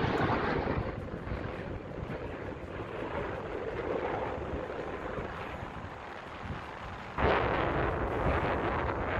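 Jet noise of a Dassault Rafale fighter's twin M88 turbofans during its flying display: a broad rushing noise that fades over the first several seconds, then jumps suddenly louder about seven seconds in.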